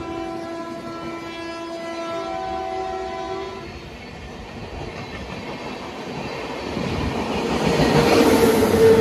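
A train's air horn sounds a long two-tone blast that stops about three and a half seconds in. Then an Indian Railways electric locomotive runs past close by, its rumble and wheel noise growing to loudest near the end with a steady hum.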